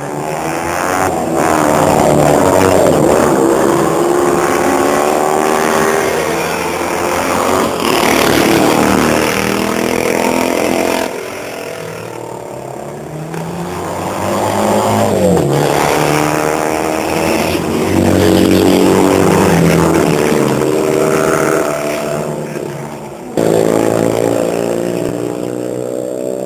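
Classic racing sidecar outfits' engines at full throttle, passing one after another. Each engine note swells and fades, its pitch rising and falling as the machines pass and change gear.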